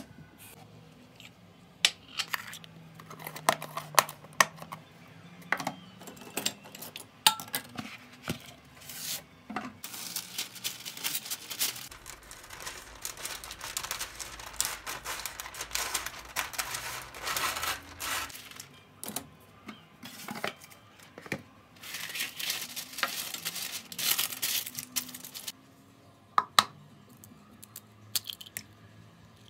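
Kitchen handling sounds: clinks and knocks of a metal baking tray and utensils, then long stretches of baking paper rustling as it is unrolled from its roll and cut with scissors. Near the end, a few sharp knocks as an egg is cracked against a bowl.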